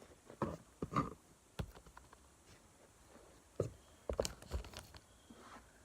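A handful of scattered light clicks and knocks, the loudest cluster about four seconds in.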